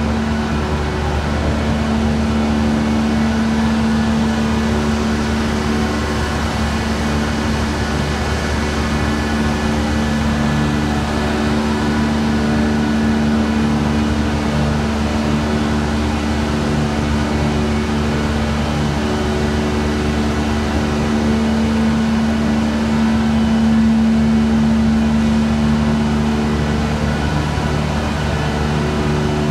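Running sugar mill machinery: electric motors, gearboxes and conveyors making a steady drone with a constant low hum.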